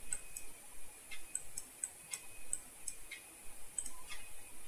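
Computer mouse buttons clicking, about a dozen sharp, irregularly spaced clicks, as a shape on the spreadsheet is selected and dragged into place.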